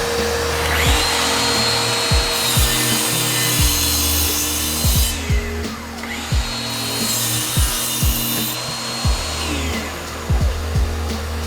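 An electric power tool's motor spins up to a steady high whine, runs for a few seconds and winds down, then does the same a second time, as it works wood. Background music with a regular beat plays under it.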